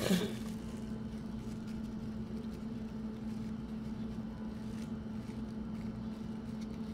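A steady low hum, with a few faint soft taps as a paint brush dabs edible gold dust on a plate and onto chicken wings.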